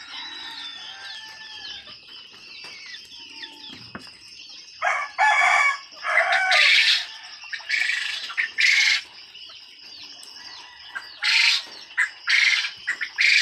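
A shed full of caged Japanese quail chirping constantly in high, thin calls. From about five seconds in, about half a dozen loud, harsh bursts of about a second each break over it.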